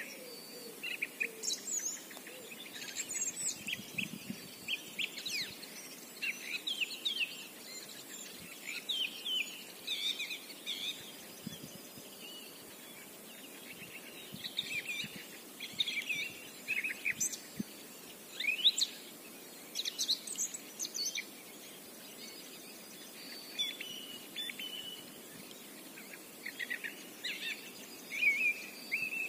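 Songbirds singing: quick runs of short chirps and trills, coming in bursts with brief pauses between them.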